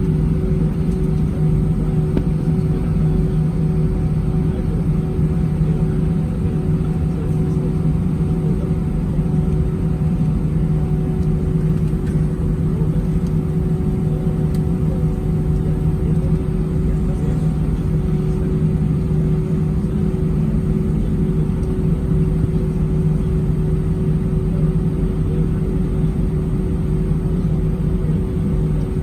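Steady cabin noise inside an Airbus A319 airliner in flight: a constant low rumble of airflow and engines, with a steady hum and a few fainter steady tones.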